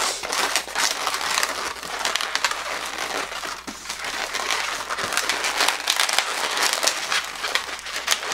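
Inflated latex modelling balloon being rubbed and twisted into segments by hand, giving a continuous dense run of crackling squeaks from the rubber.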